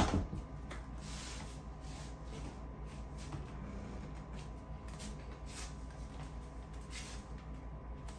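A sharp knock right at the start, then soft rustling and shuffling of clothing and bodies moving as a person is helped up, over a steady low room hum.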